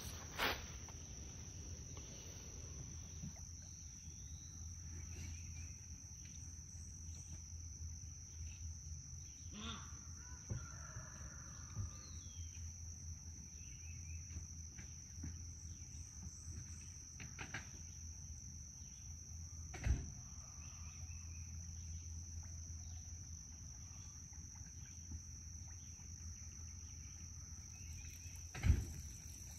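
Insects trilling steadily at one high pitch over a low rumble, with a few sharp knocks, the loudest near the end.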